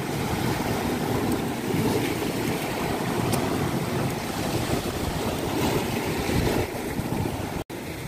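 Sea waves surging and washing over shoreline rocks in a steady rushing wash, with wind buffeting the microphone. The sound drops out for an instant near the end.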